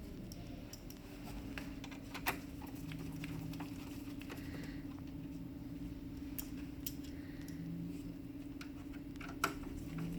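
Plastic printer parts being handled: scattered light clicks and taps, with two sharper clicks about two seconds in and near the end, over a steady low hum.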